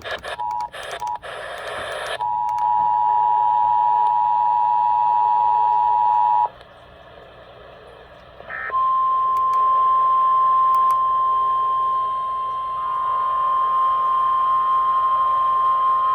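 Emergency Alert System tones between two broadcast warnings. After a couple of seconds of choppy bursts, the EAS two-tone attention signal sounds steadily for about four seconds. After a short pause and a brief chirp, a single steady tone of the kind used as the NOAA Weather Radio alert sounds, and a slightly higher second tone joins it partway through.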